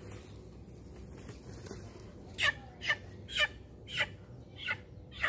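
A chicken squawking in six short calls, about two a second, beginning about two and a half seconds in, as it is caught and held by hand.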